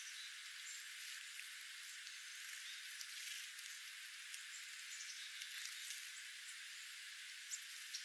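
Small seed-eating birds (a golden-crowned sparrow, dark-eyed juncos and a black-capped chickadee) pecking and husking seed on a ground bed of mixed birdseed. It sounds like scattered light ticks over a steady hiss, with only the high range left in the recording.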